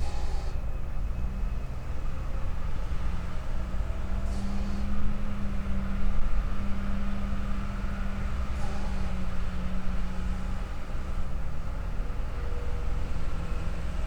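Heavy log-handling machinery's diesel engines running, a steady low rumble with a pitched hum held for several seconds. Short hisses come about every four seconds.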